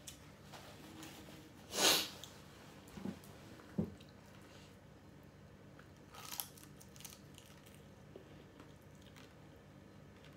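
Crunching bites into crispy battered fried shrimp and chewing, with the loudest crunch about two seconds in and another about six seconds in, plus a few small knocks in between.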